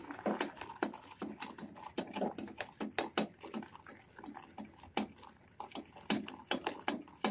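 Steel spoon scraping and clinking against a stainless steel saucepan in quick, irregular strokes while stirring boiling, foaming sugar syrup.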